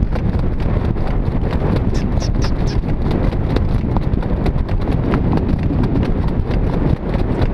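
Hoofbeats of a two-year-old Standardbred filly pulling a jog cart at speed on a dirt training track: a quick, even clip-clop, about four to five beats a second, over a steady low rumble.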